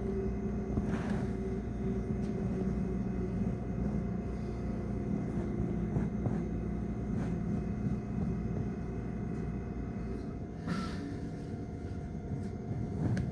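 Train running: a steady low rumble with a constant hum of several tones and a few faint clicks.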